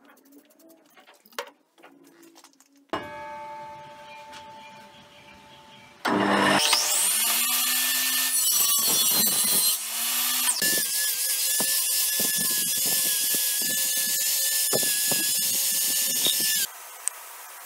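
Electric power tool: its motor winds up with a rising whine about six seconds in, runs loud and steady for about ten seconds, then stops abruptly. A quieter machine hum comes before it, from about three seconds in.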